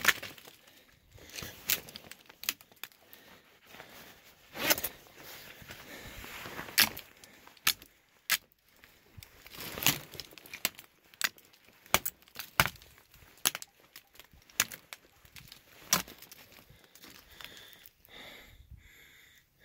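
A hiker scrambling over rocky ground: irregular crunches, clicks and scrapes of footsteps on rock and gravel, with small clinking sounds mixed in.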